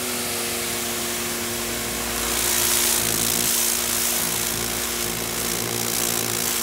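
Electric pressure washer (Sun Joe SPX2688-MAX) running under load with the trigger held, its motor and pump giving a steady hum under the hiss of the turbo nozzle's water jet. The spray hiss grows louder about two seconds in.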